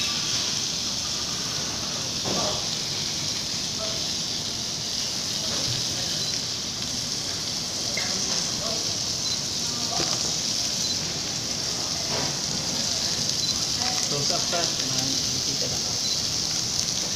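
Raw beef slices sizzling on a hot grilling stone, a steady high hiss as pieces are laid on.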